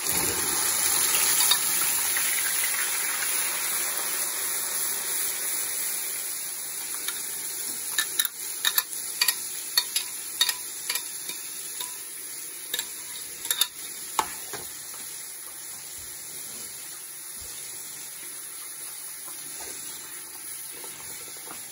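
Blended onion paste poured into hot oil in a pan, sizzling loudly at once and then easing to a steadier, quieter sizzle as it fries. From about eight seconds in, a string of sharp utensil clinks against the pan as the paste is stirred.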